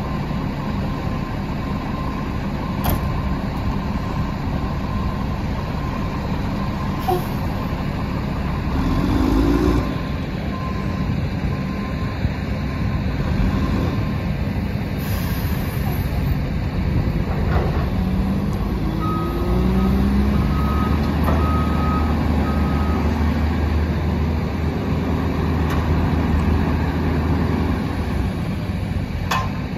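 Mack LE garbage truck's diesel engine running and revving as the truck pulls up and works its front leaf-loading attachment, with rising whines from the revving and hydraulics. About two-thirds of the way through, a backup beeper sounds in a short row of even beeps over the heavier engine drone, and a brief air hiss comes a little earlier.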